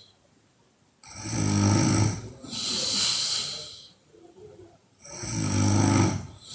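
A woman snoring loudly: two rattling snores about four seconds apart, the first followed by a long hissing breath.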